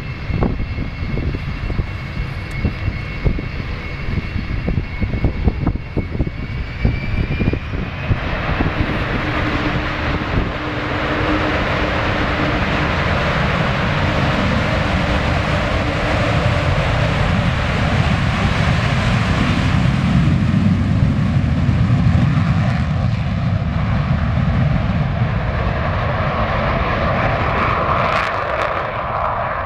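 Avro Vulcan's four Rolls-Royce Olympus turbojets whining at low power, with irregular low buffeting on the microphone. About eight seconds in they spool up to take-off power: the thin high whine gives way to a loud, broad rushing noise that carries through the take-off roll and lift-off.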